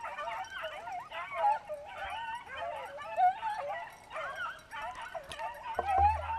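Several hunting dogs baying together as they run a rabbit, their overlapping calls rising and falling without a break.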